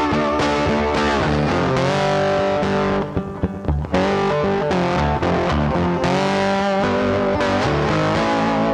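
Background music: a guitar-led track with sliding, bent notes over a bass line, thinning out briefly about three seconds in.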